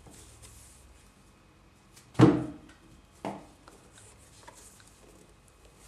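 Hands handling the crochet work in thick yarn: faint rubbing and small ticks, with a loud thump about two seconds in and a softer one about a second later.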